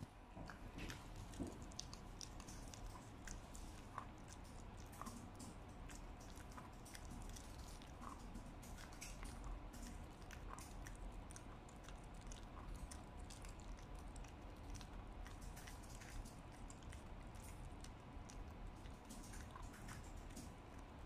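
A West Highland White Terrier gnawing on a toothbrush-shaped dental chew: faint, irregular clicks and crunches of teeth working the chew.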